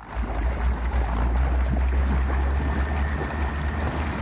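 Motorboat engine running with a steady low drone while towing, with water rushing and splashing past the hull.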